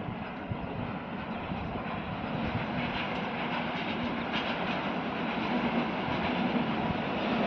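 Train running along the track, a steady rumble that grows gradually louder as it comes closer, with a faint steady hum underneath.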